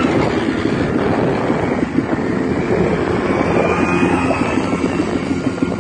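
Quad bike (ATV) engines running as they ride over sand, the engine pitch rising and falling a little.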